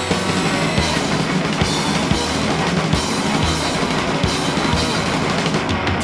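Grunge/alternative rock song playing from a vinyl record: a full band with the drum kit prominent.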